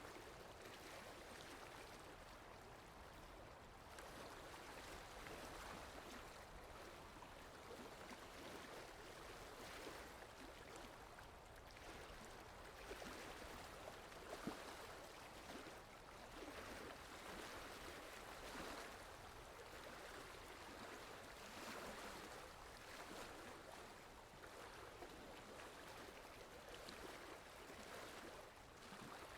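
Faint lake water gently lapping and rippling, swelling and easing every few seconds, with a few small splashes.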